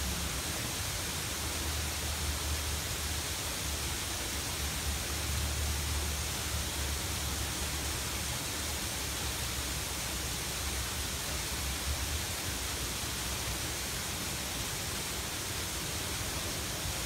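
Garden waterfall splashing down rocks into a pond: a steady, even rushing hiss, with a low rumble underneath that eases off about two-thirds of the way through.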